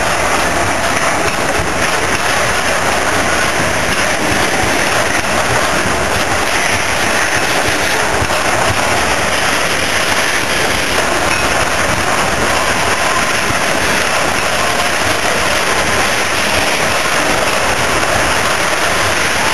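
Hopper wagons of a coal train rolling past, a steady rushing noise of wheels on rail with no clear beat.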